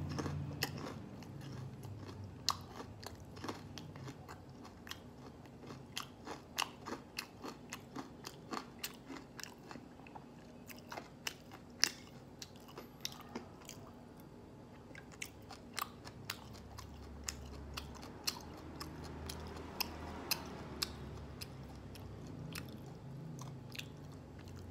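Close-up crunching and chewing of crispy breaded fried pork: many sharp crunches in quick runs, several a second.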